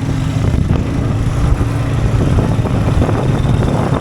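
Farm motorbike engine running steadily while being ridden.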